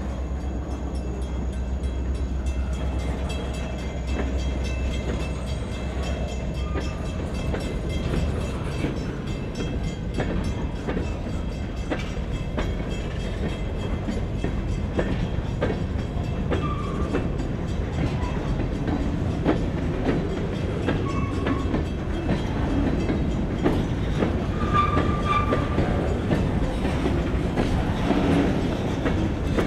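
Vermont Railway freight train of covered hopper cars and bulkhead flatcars rolling past, wheels clacking steadily over the rail joints under a continuous rumble. A few short, high wheel squeals come through in the second half.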